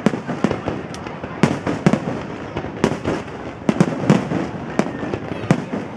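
Aerial fireworks display: shell bursts going off as a rapid, irregular series of sharp bangs, sometimes two or three within a second, over a continuous noisy crackle.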